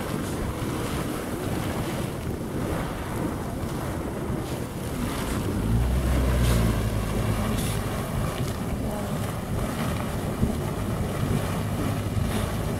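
Geyser erupting close by: a steady rush and hiss of steam and spouting water. Wind buffets the microphone, with a low rumbling gust about six seconds in.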